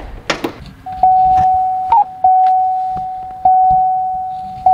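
2004 Chevrolet Silverado's cab warning chime dinging over and over, about once every 1.2 seconds, a single tone that rings and fades each time, with the cab door open and the ignition switched on. A couple of sharp knocks near the start.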